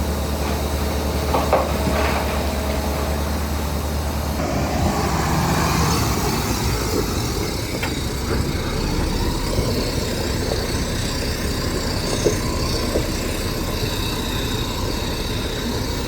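Heavy diesel earthmoving machinery running steadily, with scattered knocks and clanks. The sound changes abruptly about four seconds in, from a steady low engine note to a broader, noisier rumble.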